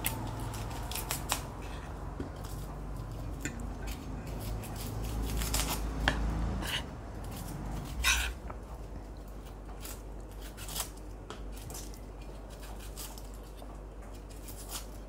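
Spoon and fork clinking and scraping on a plate during a meal: a scatter of light, irregular clicks, the sharpest about six and eight seconds in.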